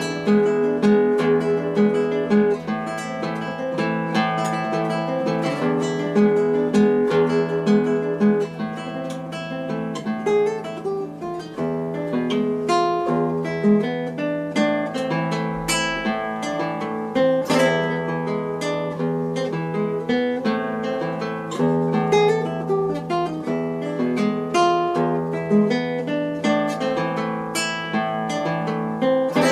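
Background music: an acoustic guitar piece, a steady flow of plucked notes over a held low note.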